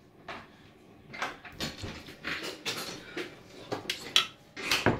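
Dishes and utensils clinking and knocking: a run of short clatters against china, the sharpest a little after four seconds in.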